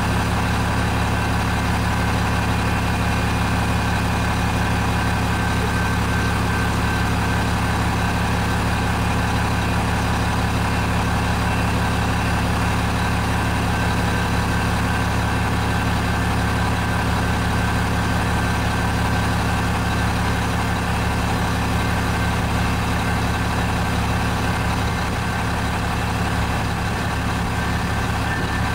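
Steady diesel engine drone with a faint high tone riding over it, from the locomotive of an MBTA commuter train coming toward the crossing.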